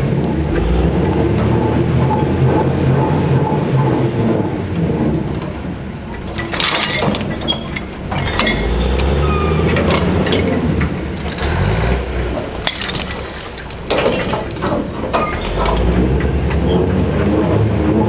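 Manitowoc 4600 dragline at work: the machine's engine runs steadily under load while the bucket's drag chains clank and rock knocks and scrapes against the steel bucket in several bursts.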